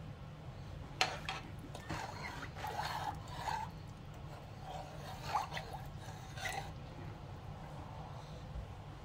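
A metal spoon stirring water in a large stainless steel stockpot, dissolving bouillon paste: a sharp clink against the pot about a second in, then several seconds of swishing and scraping that stop near the end. A steady low hum runs underneath.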